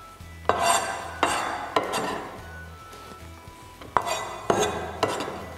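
Large kitchen knife knocking against a stainless steel bowl and cutting board as diced bacon is pushed into the bowl: a handful of sharp clinks spread a half-second or so apart, several of them ringing briefly like metal.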